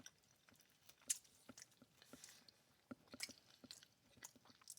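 Close-miked chewing of crispy fried Beijing beef: faint, irregular mouth clicks and soft crunches, the loudest about a second in.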